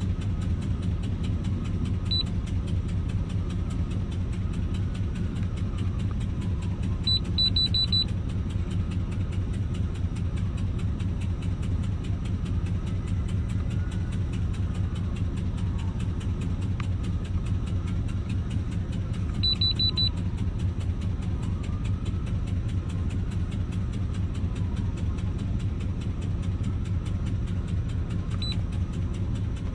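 GM 4.8 L LS V8 idling steadily with a rapid, even ticking, the noise the owner takes for an exhaust leak at the headers. Short high beeps sound a few times.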